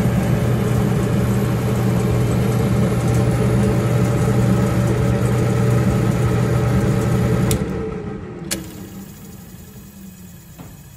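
Samsung gas dryer's drive motor running with a steady hum, then a sharp click about seven and a half seconds in, after which the motor cuts out and winds down, with a second click a second later. The click and stop are the symptom of the failing motor, which shuts itself off after running a while.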